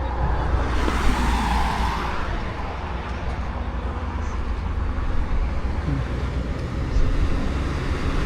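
Steady engine and road rumble of a vehicle travelling along a highway, with a louder rush of traffic noise about a second in.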